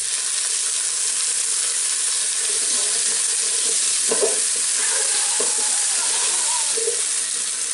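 Oil sizzling steadily as small whole new potatoes, chopped onion and whole spices fry in a pan, with a slotted spatula stirring and scraping a few times, most clearly about four seconds in.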